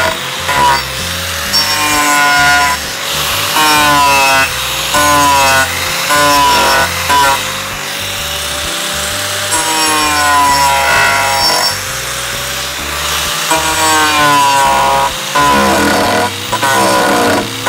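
A Makita 4-1/2-inch angle grinder with an abrasive-grit carving disc grinding into the edge of a pine board in repeated passes. The motor's whine dips in pitch each time the disc bites into the wood and recovers between passes, over a gritty rasp.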